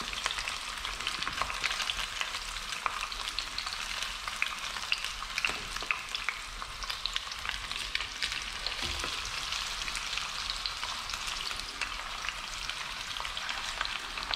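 Two whole porgies shallow-frying in hot oil, the oil sizzling steadily with frequent small crackling pops.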